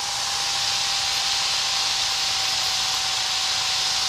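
Steady hiss with a thin, steady high tone under it, heard on the aircraft's headset radio and intercom audio feed.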